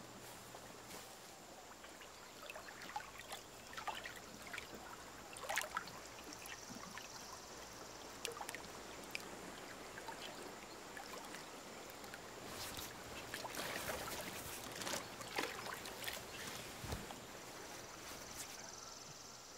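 River water splashing and trickling around people wading, faint, with a busier stretch of splashes about two-thirds of the way through.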